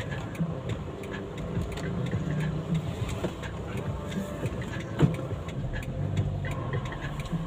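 Inside a car cabin: the car's engine idling with a steady low hum and street traffic noise while stopped in traffic. One sharp click comes about five seconds in.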